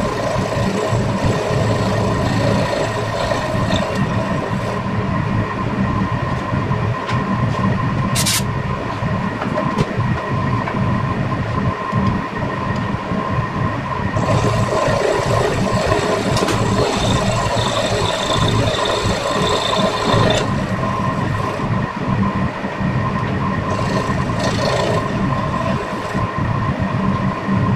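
Vertical milling machine running with a steady whine, its end mill cutting down the stub of a broken rocker-cover bolt in a motorcycle cylinder head. The cutting grows harsher for several seconds past the middle and again briefly near the end, with one sharp click about eight seconds in.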